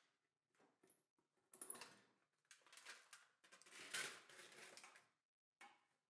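Faint clicks, scrapes and rustles from an Evenheat electric heat-treat oven being loaded: its insulated door is unlatched and swung open, a steel-foil-wrapped blade is set inside, and the door is swung shut near the end.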